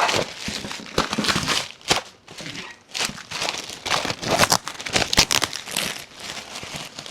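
Packaging being handled and unwrapped: irregular crinkling and rustling with some tearing.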